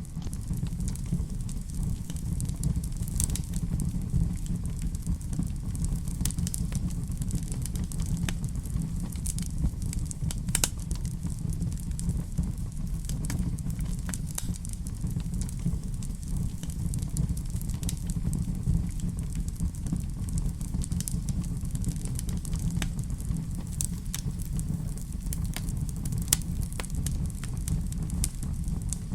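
Wood fire in a fireplace burning steadily, with a low rumble and frequent sharp crackles and pops.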